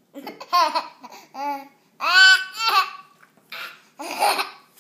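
Baby laughing and squealing in short high-pitched bursts, with the loudest squeal about two seconds in.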